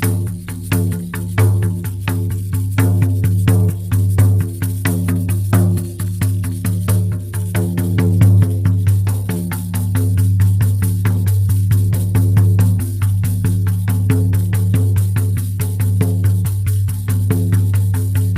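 Shamanic frame drum beaten in a steady, rapid rhythm, each stroke running into a deep ringing boom. The strokes grow denser and more even in the second half.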